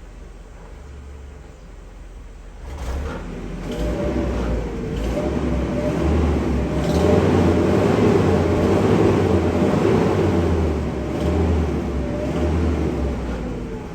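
Mercedes W124 E220's M111 four-cylinder petrol engine running, with a low hum at first, then growing much louder about three seconds in, swelling and wavering in pitch through the middle and easing off near the end. The exhaust carries extra noise from a failing silencer, and the owner notes the engine does not idle smoothly.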